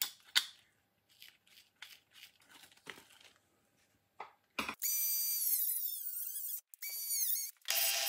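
Light clicks and scrapes of a metal pin being pushed into a plastic plug housing. About halfway through, a small power-tool motor starts with a high whine. Its pitch dips and recovers; it cuts out briefly and starts again near the end as a steady hum.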